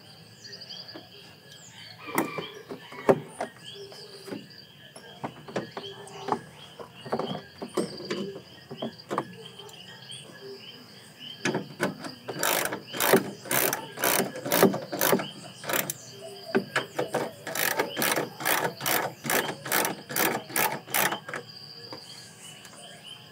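Socket ratchet clicking as it tightens the bolt on a plastic air intake duct, with a long, quick run of clicks in the second half after a few scattered knocks of parts being handled. Crickets chirp faintly throughout.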